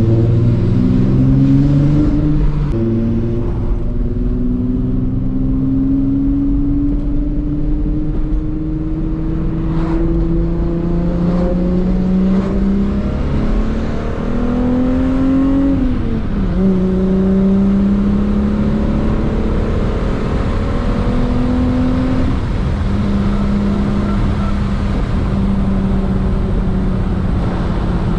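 Mk3 Volkswagen GTI's VR6 engine pulling the car on the road. The engine note climbs slowly, drops at a gear change about two seconds in and again around sixteen seconds in, then holds nearly steady while cruising, over a constant low road rumble.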